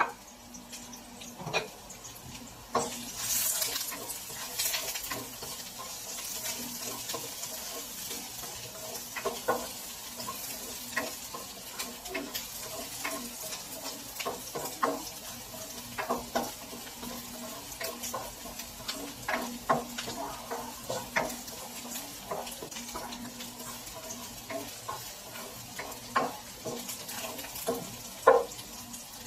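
Ginger, garlic and onion sizzling in hot oil in a nonstick wok, the sizzle growing stronger about three seconds in. A spatula scrapes and taps against the pan now and then as the aromatics are stirred.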